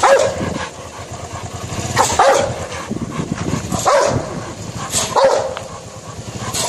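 A Rottweiler barking repeatedly, four barks with about one and a half to two seconds between them.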